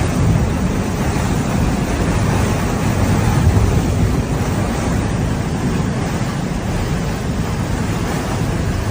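Typhoon wind blasting across the microphone: a steady, loud rush of noise, heaviest in the low end, with no let-up.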